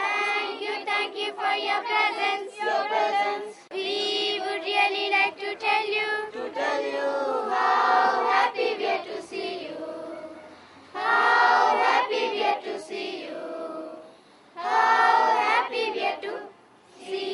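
A group of schoolchildren singing together as a choir, phrase after phrase with brief breaks between them.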